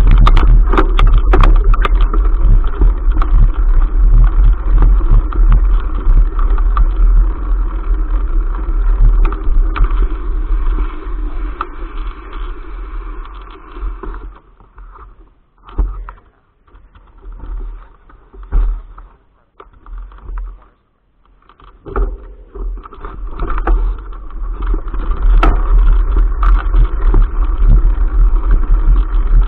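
Riding noise picked up by a bicycle-mounted action camera: a deep rumble of wind buffeting and the mount rattling and clicking as the bike rolls over rough ground. About halfway through it falls away to a much quieter stretch, broken by a few thumps, then returns loud near the end.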